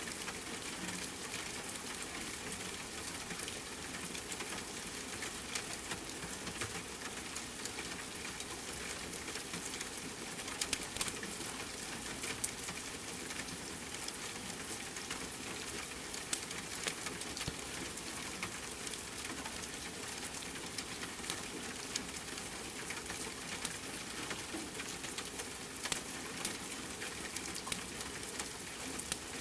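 Steady rain hiss with scattered crackles and pops from a wood fire.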